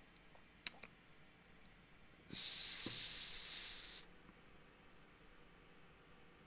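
A man drawing a long, hissing breath close to the microphone, lasting nearly two seconds, with a small mouth click before it.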